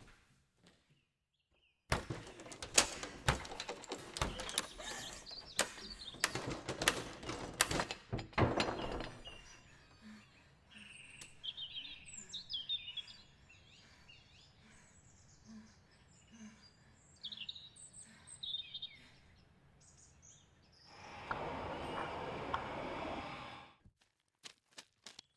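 A dense run of knocks and impacts starting about two seconds in and lasting some seven seconds, then birds chirping. Near the end, an even rushing noise lasts about three seconds and cuts off suddenly.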